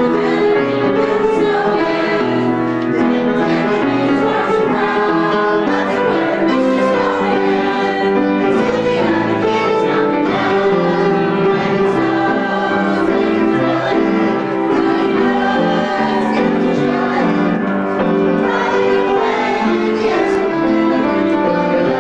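A mixed group of adults and children singing a Christmas carol together, with Steinway piano accompaniment, continuous throughout.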